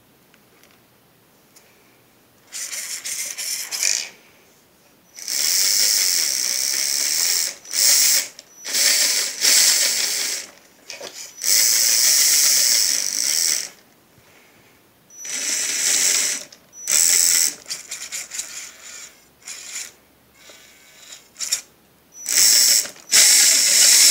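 Radio-controlled crawler truck's electric motor and geared drivetrain whirring in repeated bursts as the throttle is worked, some lasting two or three seconds and others short blips, with the truck's waterproofed Futaba receiver sitting in a tub of water. The running motor and gears show that the coated receiver still works while wet.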